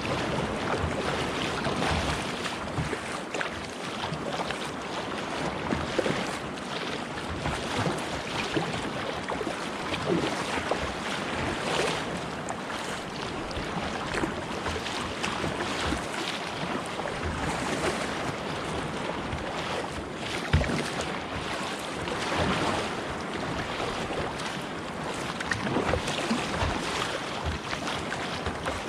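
Sea water splashing and sloshing around a kayak, surging every second or two, with wind buffeting the microphone.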